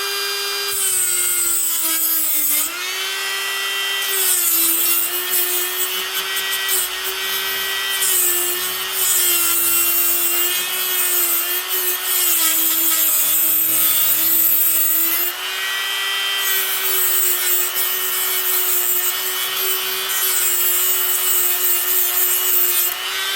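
Dremel rotary tool with a diamond cutting wheel running at high speed and grinding into the steel rivet heads of a deadbolt. The motor's whine sags in pitch each time the wheel bites and comes with a harsh grinding hiss. The spinning wheel is turning the rivets loose.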